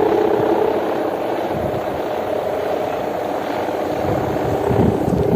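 A big kite's sendaren (kite hummer) droning in the wind, a snoring-type hum that weakens in the middle and comes back near the end, over wind buffeting the microphone.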